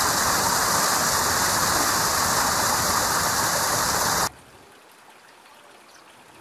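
Water rushing at a canal lock, a loud steady hiss that stops abruptly about four seconds in, leaving a quiet outdoor background.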